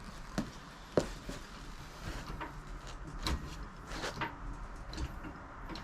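Vehicle lift being raised further under a car: a series of sharp clacks and knocks, irregularly spaced about once a second, the loudest about a second in.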